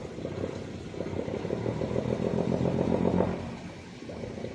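An engine running, building louder for about two seconds and then dropping away sharply.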